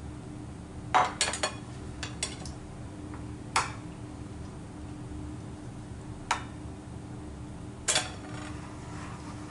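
Crockery clinking as a bowl and a plastic serving spoon knock against a ceramic plate: a quick cluster of sharp clinks about a second in, a couple more soon after, then single knocks a few seconds apart.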